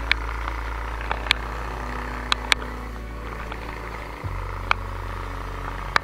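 Mountain bike being ridden on a trail: steady low wind rumble with a haze of rolling noise, and about six sharp clicks and rattles scattered through.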